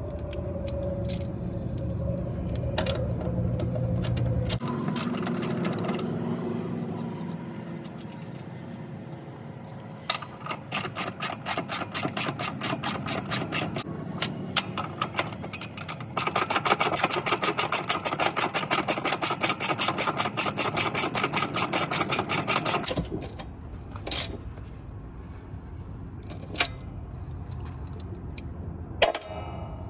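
Ratchet wrench clicking in fast, even runs while working the air spring's fasteners. The first run lasts about six seconds, then a faster, denser run lasts about seven, followed by a few single knocks of metal on metal.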